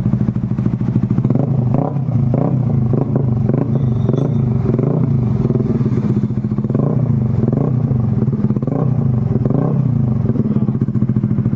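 Creed motorcycle with an open, unmuffled exhaust pipe running steadily at idle, a loud even exhaust note with a slight pulse about twice a second.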